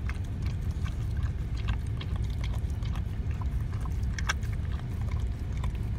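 Golden retriever lapping corn soup from a bowl: an irregular run of short wet licking clicks, one louder about four seconds in, over a steady low rumble inside the car.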